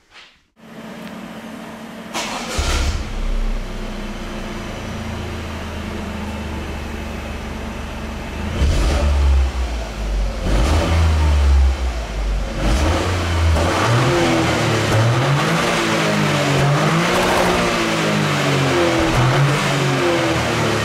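Toyota GR Yaris turbocharged 1.6-litre three-cylinder heard through its stock exhaust: it starts about two seconds in and idles steadily. From about eight seconds in it is blipped a few times, then revved up and down again and again.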